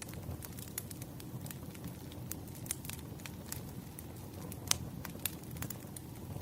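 Firewood burning: a steady low rumble of the fire with irregular sharp crackles and pops, one louder pop about three quarters of the way through.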